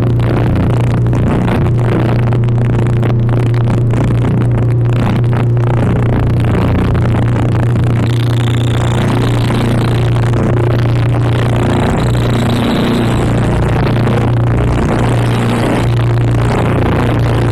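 Harsh noise music played from a cassette: a loud, unbroken wall of dense, machine-like noise over a steady low drone, with thin high whines coming and going in the second half.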